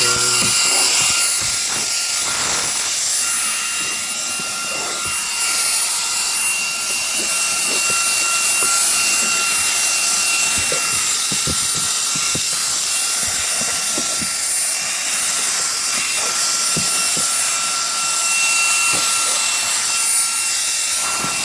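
Reikiya HV-C11 cordless handheld vacuum running steadily with a high whine and rushing air, vacuuming a car interior. Scattered light knocks and scrapes sound as the nozzle works over the surfaces.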